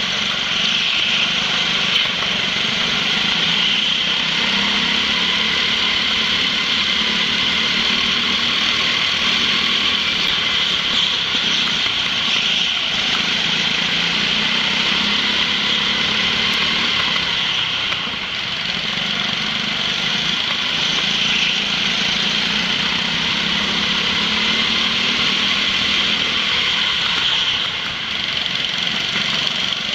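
Go-kart engines running at race pace, heard from on board a kart in close company with others: a steady buzzing engine note that dips briefly twice, about eighteen seconds in and again near the end.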